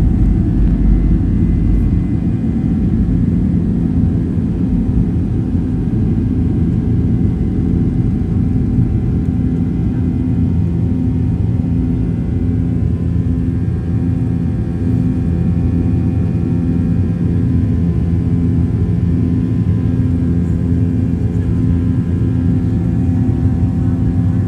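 Boeing 737-900's CFM56-7B turbofan engines at takeoff thrust, heard inside the cabin: a steady, loud rumble with several steady engine tones over it. The deepest part of the rumble eases about two seconds in.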